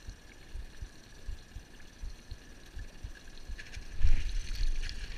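Small waves slapping against a small boat's hull, with wind on the microphone. About four seconds in comes a sudden loud rush with clicks and rattles as the spinning rod is swept up.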